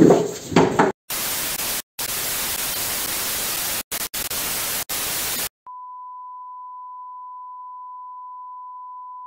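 Television static: a loud, even hiss cut by a few brief dropouts, after a second of shouting and scuffling. About five and a half seconds in, it gives way to the steady single-pitch beep of a colour-bars test tone.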